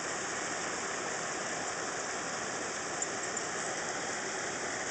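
Steady rush of running water at the pond, even and unbroken, with a faint click about three seconds in.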